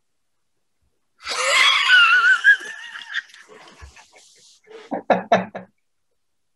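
Laughter: a loud, high, wavering squeal a little over a second in that trails off over a couple of seconds, then a few short bursts of laughter about five seconds in.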